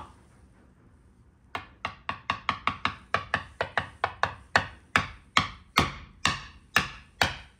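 Small wooden mallet tapping again and again on a wooden pound-a-ball toy, sharp wooden knocks at about three to four a second, starting about a second and a half in.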